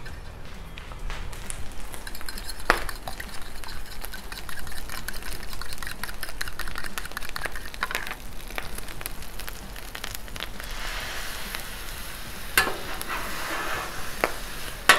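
Food sizzling steadily on a hot Blackstone steel flat-top griddle, with a fork whisking beaten eggs in a bowl. About ten seconds in, the sizzling grows louder as egg is poured onto the griddle, and a few sharp clicks come from the metal spatula on the steel.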